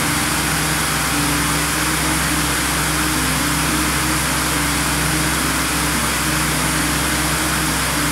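Background music with sustained low synth notes that shift pitch every second or two, over a steady rushing hiss.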